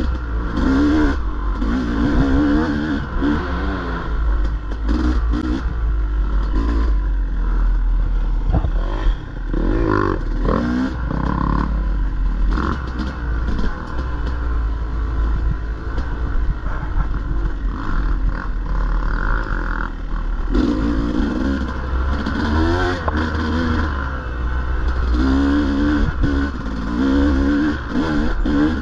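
Dirt bike engine revving up and down repeatedly as the rider works the throttle, with its pitch rising and falling every second or so, and scattered knocks and clatter from the bike over rough ground.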